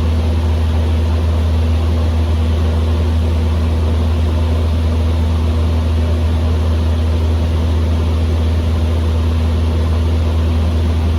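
Cessna 150M's four-cylinder Continental O-200 engine and propeller droning steadily in flight at constant power.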